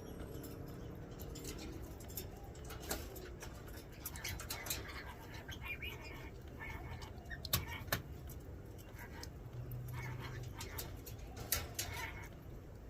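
Aviary birds calling with short chirps, among scattered sharp clicks and knocks, the loudest two close together a little past halfway, over a low steady hum.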